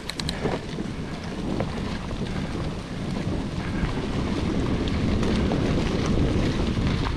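Wind rumble on an action camera's microphone mixed with the noise of a full-suspension mountain bike rolling slowly over a muddy forest trail, with a few light clicks and rattles, most of them near the start.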